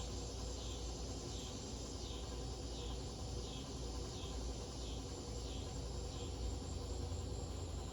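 Harbor Breeze Lakeside II ceiling fan running slowly on a failing capacitor: a low steady motor hum, with a faint high chirp that repeats about once every 0.7 seconds and stops near the end.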